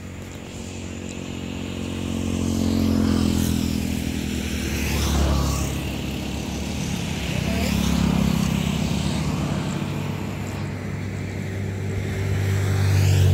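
Motor vehicles on a road passing close by one after another, their engine sound swelling and fading away about four times.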